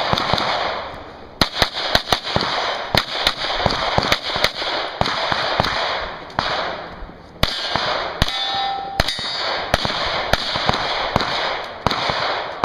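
Smith & Wesson M&P 9L 9mm pistol fired in quick pairs and strings of shots, with a pause of about a second just past the middle. Steel targets ring briefly twice in the later half.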